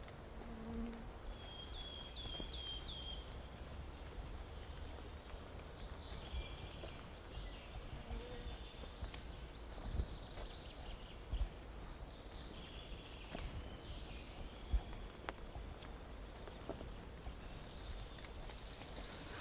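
Forest birds calling: a quick run of four high chirps about two seconds in, then more high calls later on. Under them are occasional soft thuds of footsteps from someone walking, and a low steady rumble.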